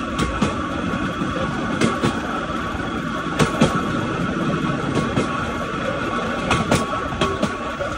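Pedal-powered rail bike's steel wheels rolling along railway track: a steady rumble and faint hum, with sharp clicks, often in close pairs, as the wheels cross rail joints.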